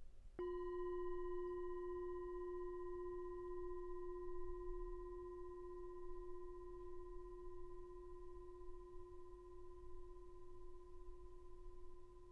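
A brass singing bowl is struck once with a wooden striker about half a second in, then rings on with a low hum and several higher overtones, slowly fading. Its ring marks the end of the guided meditation.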